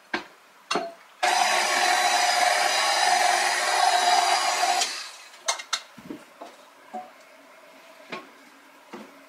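Electric mixer running steadily for about four seconds, starting and stopping abruptly, as it mixes a half-cup addition of flour into ube cake batter. A few light knocks come before and after it.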